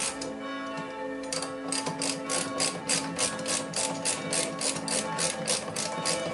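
Hand ratchet wrench clicking steadily, about four clicks a second, as it turns out the 5/8-inch bolts holding an MGC front brake caliper. The clicking pauses for about a second near the start, then runs on.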